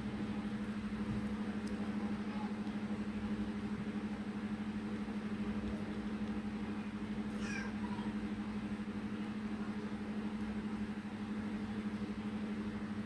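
A steady low hum, with a faint brief squeak of a felt-tip marker on cardstock about seven seconds in.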